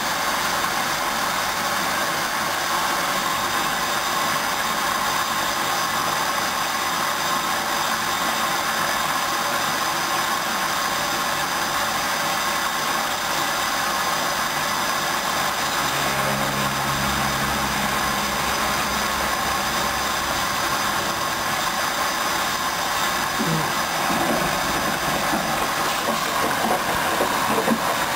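Hoover Dynamic Wash 10+ front-loading washing machine running a mini-load wash cycle: a steady hiss, with a low hum from about sixteen to twenty-one seconds in and a few irregular clicks near the end.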